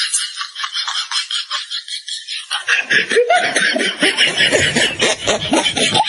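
A person snickering and laughing, coming in about halfway through, over a fast, steady pulsing sound.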